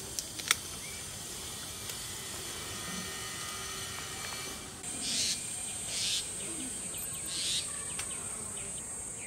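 Hand pruning shears snipping a dragon fruit stem: three quick sharp clicks near the start, the loudest about half a second in. Behind them a steady high insect drone, crickets among it, grows stronger about halfway through and swells three times.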